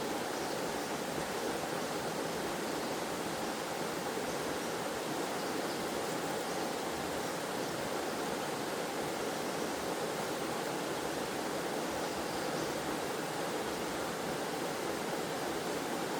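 Waterfall and stream water rushing, a steady, even flow with no changes.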